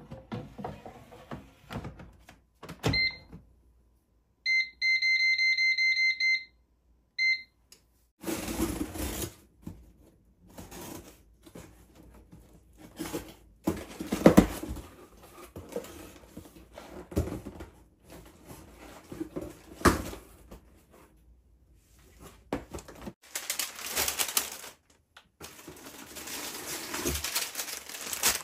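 Electronic beeps from a kitchen appliance's control panel: one short beep, a rapid run of beeps lasting about two seconds, then another short beep. After that come irregular knocks and clatter of things being handled.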